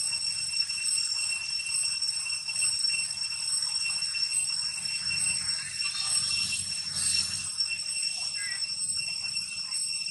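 Steady high-pitched drone of insects in the forest trees, several even tones held without a break, swelling with a louder hiss about six to seven seconds in. A short chirp sounds near the end.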